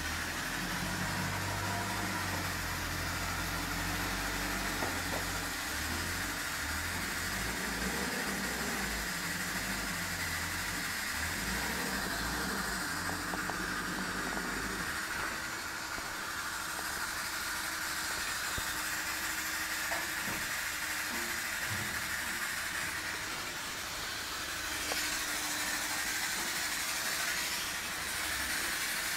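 Forklift engine running, its pitch shifting in steps as it works, then dropping away about halfway through, over a steady hiss.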